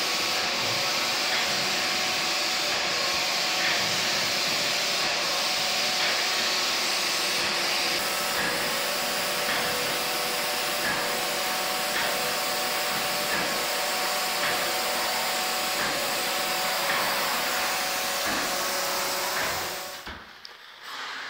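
Airlessco HSS 9000 hydraulic airless sprayer running while its gun sprays gypsum skim coat: a steady, loud spraying hiss over a faint machine hum, cutting out about twenty seconds in.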